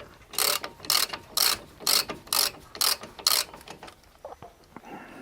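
Seven short rasping strokes, about two a second, then a few faint clicks, from hand work on the guide pins of a Lada Vesta's front brake caliper.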